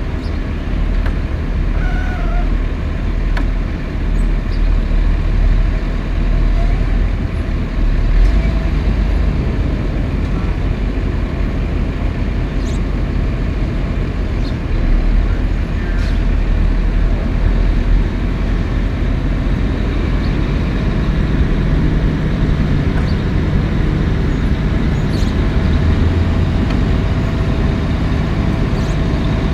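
Caterpillar 140H motor grader's diesel engine running steadily while it levels a gravel sub base, with scattered light clicks. About two-thirds of the way through, a deeper steady hum comes in as the engine note changes.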